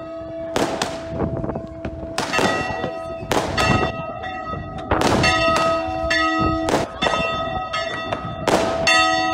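Church bells ringing on and on while aerial fireworks burst overhead, with a sharp bang every second or so over the ringing.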